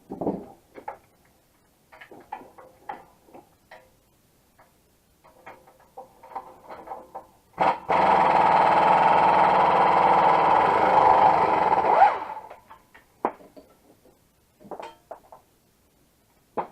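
A handheld power tool runs steadily for about four seconds, starting and stopping abruptly, with scattered light clinks and knocks of metal tool handling before and after.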